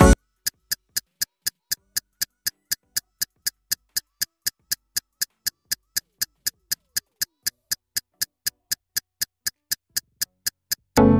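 Ticking-clock sound effect: even, sharp ticks about three a second over silence. Music breaks off at the start and comes back in at the very end.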